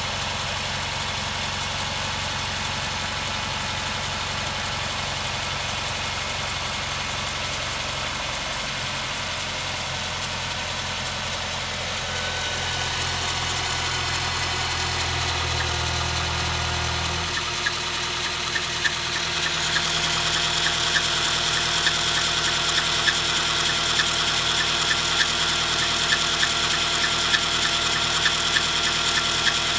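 Suzuki Grand Vitara 2.0-litre four-cylinder engine idling cold. From about two thirds of the way in, a repeating sharp knock sounds over the idle: a knock on cold start whose cause the owner does not know.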